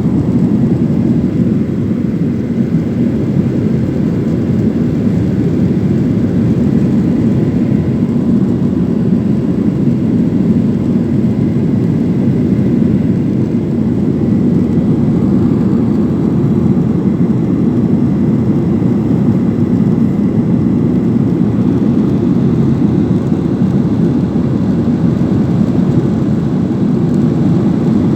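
Jet airliner cabin noise, most likely a Boeing 737: a steady, loud low rumble of engines and airflow heard from inside the cabin, with faint steady whines above it.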